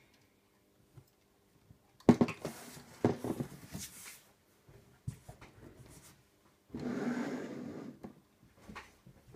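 Large LEGO UCS Slave I brick model being handled: a knock and about two seconds of plastic bricks clattering as it is turned over and set down on its base on a shelf, a single click, then a hand rubbing across its plastic hull for about a second.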